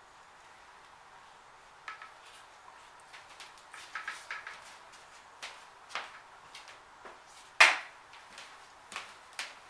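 Light clicks and knocks of a paint can and metal tools being handled, with one much louder knock about two-thirds of the way through.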